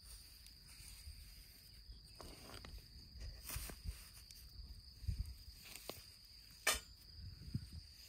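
Heavy stones being set down in grass to ring a campfire: soft low thumps and rustling of grass, with one sharp knock about two-thirds of the way through. Under it runs a steady high buzz of insects.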